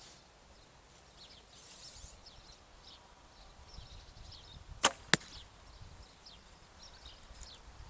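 A Bodnik Slick Stick longbow shot: a sharp snap as the string is released, then about a third of a second later a second sharp hit as the arrow strikes the target. The shot is very quiet. Faint bird chirps sound in the background.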